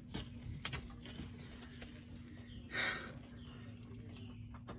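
Insects buzzing steadily in the background, with a few faint clicks and one brief soft noise about three seconds in.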